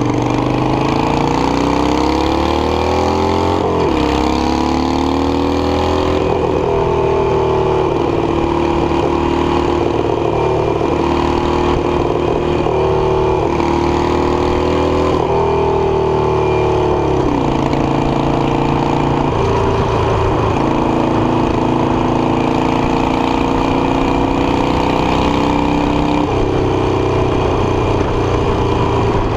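Harley-Davidson Iron 883's air-cooled V-twin running under load on the road. Its pitch climbs over the first few seconds, drops at an upshift about four seconds in, then mostly holds steady at cruising speed, dipping once more partway through, over constant road and wind noise.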